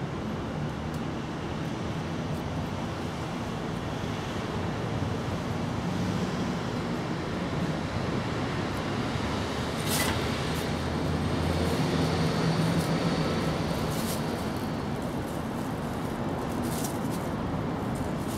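Steady outdoor background noise with a low hum that swells a little in the middle, and a few short sharp clicks.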